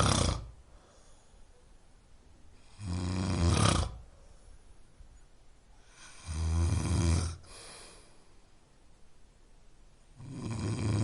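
A person snoring steadily: a snore about every three and a half seconds, with quiet pauses between breaths.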